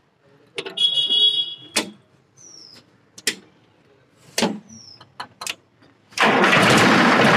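Sonalika DI 35 tractor's three-cylinder diesel engine cranking and starting about six seconds in, then running loudly. Before it come a few knocks and clicks and a short high-pitched buzz about a second in.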